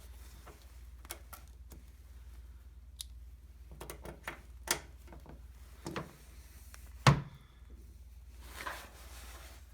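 Scattered metal clicks and knocks from working a hand grease gun and its coupler on a tractor loader's grease fitting, with one sharp, loud knock about seven seconds in and a short scrape near the end.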